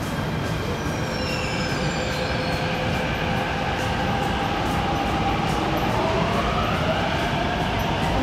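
MTR C-Train electric multiple unit running through an underground station behind platform screen doors: a steady rumble of wheels on rails with a whistling motor whine that rises in pitch over the last few seconds as the train speeds up.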